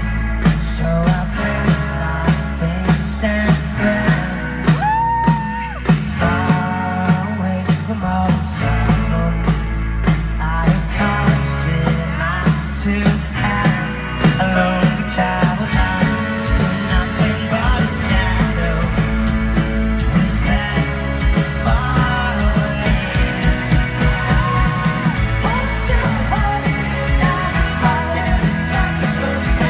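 Indie folk band playing live, with singing over electric guitar, bass and drums, heard through a festival PA. The drumming gets busier about halfway through.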